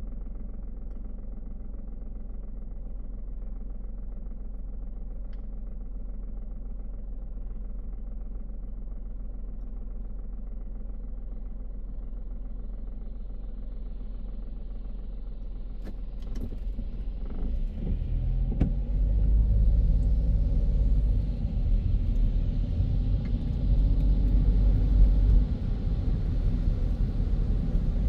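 A car driving on a city road: a steady low rumble of engine and road noise. From about sixteen seconds in it grows louder and fuller, with more tyre and road hiss.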